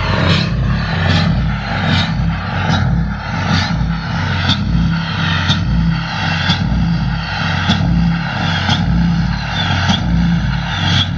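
6.7 Cummins inline-six turbodiesel running steadily on a cold start, with a short sharp chirp repeating about once a second, the gaps slowly growing longer.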